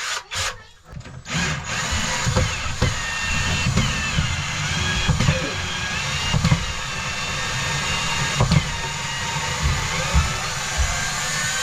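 Cordless drill/driver running almost continuously for about ten seconds, its motor whine wavering in pitch, as it backs out a long screw.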